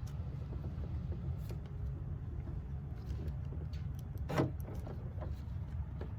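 Small clicks and rustles of hands handling parts, with one louder rustle about four seconds in, over a steady low rumble.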